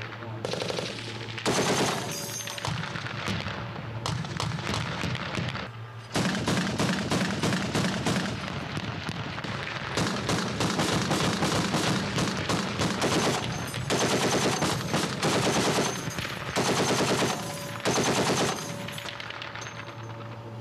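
Bursts of automatic gunfire from military machine guns and rifles: several long strings of rapid shots separated by short gaps, over a steady low hum.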